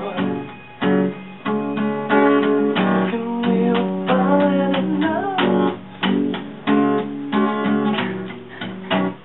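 Two acoustic guitars strummed together, playing chords in a repeating rhythm.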